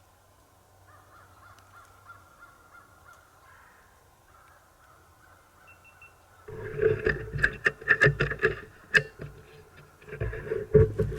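Faint outdoor quiet, then about six seconds in a loud run of harsh, repeated animal calls with sharp clicks, pausing briefly and starting again near the end.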